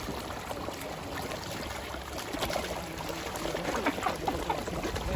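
Faint, distant voices over steady outdoor background noise.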